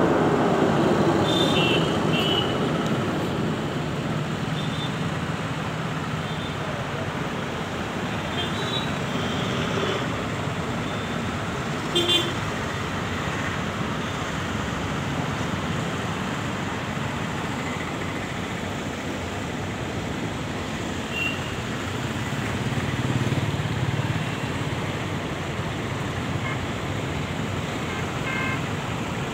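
Steady road traffic noise, louder for the first few seconds and then settling, with short vehicle horn toots now and then. A single sharp knock comes about twelve seconds in.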